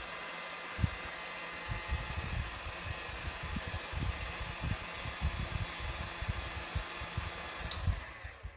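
Handheld heat gun blowing hot air steadily onto a foamiran petal to soften it for shaping, with uneven low thumps beneath the hiss. It cuts off just before the end.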